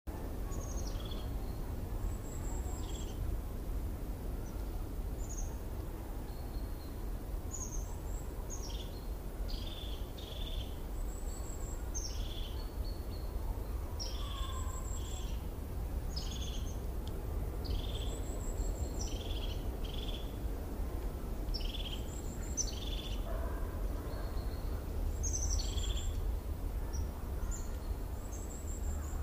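Birds chirping: short high chirps repeating every second or so, over a steady low hum.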